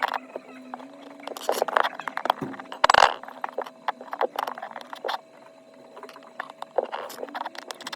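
Small repair tools clicking, tapping and scraping on a phone, with one louder scrape about three seconds in and a faint steady hum underneath.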